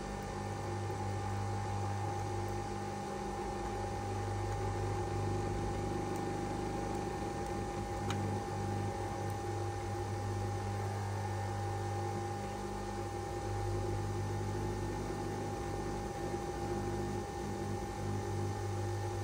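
Pod coffee machine brewing a double espresso pod: a steady machine hum with one faint click about eight seconds in.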